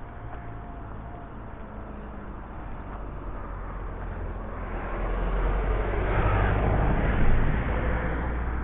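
Diesel lorry engine idling with a steady low hum, swelling louder for a few seconds in the second half.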